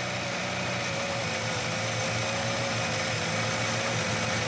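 A four-cylinder car engine running steadily with a compression gauge screwed into each cylinder. It gives an even mechanical drone with a held mid-pitched tone.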